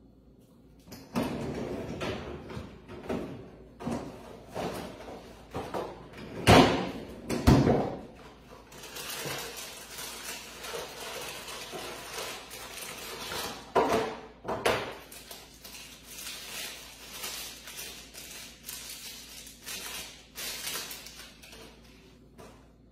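A cardboard ice-cream bar box being handled and a bar's plastic wrapper crinkled and torn open, with several sharp knocks against the counter. The loudest are two knocks about a second apart, a third of the way in, and two more just past the middle.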